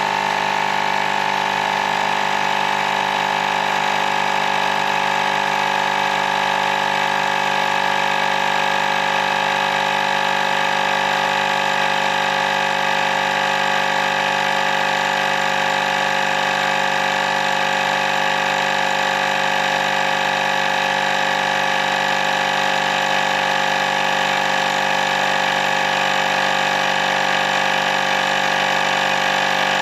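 Fanntik X8 cordless portable air inflator running steadily, its small piston compressor pumping air into a tire toward a preset 12 psi, where it stops on its own.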